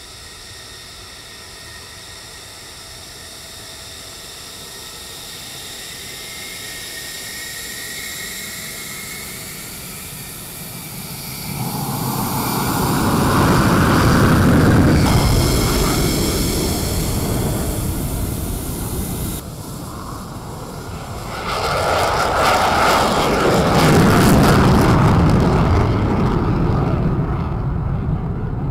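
Fighter jet engines whining, then two loud takeoff roars with afterburner. The first roar starts about twelve seconds in and cuts off suddenly; the second starts about twenty-two seconds in and fades near the end.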